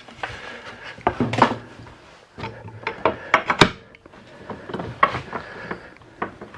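A metal bar clamp being set and tightened across glued-up wooden boards: scattered wooden knocks and metal clicks, with a quick cluster of sharp clicks around the middle and a sharp knock at the end.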